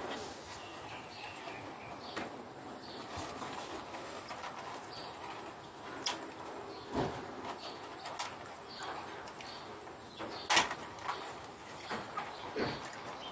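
Plastic wiring connectors on a Bosch dishwasher's control wiring being handled, giving scattered sharp clicks and knocks over a steady hiss, the loudest about ten and a half seconds in.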